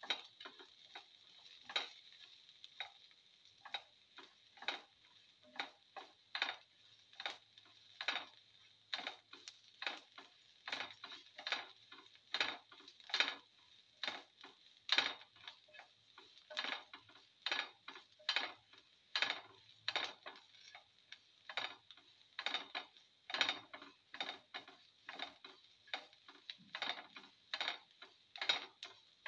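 Spatula scraping and stirring in a pan in regular strokes, a little over one a second, as sliced shallots, garlic and ginger with cumin and mustard seeds are sautéed; the strokes grow steadier and louder after the first few seconds, over a faint sizzle.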